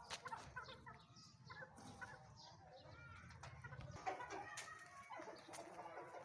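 Chickens clucking faintly, many short overlapping calls with scattered sharp clicks among them.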